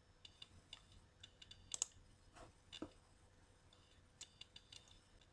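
Near silence with faint, scattered clicks of a computer keyboard and mouse, a few single ones and then a quick little run near the end.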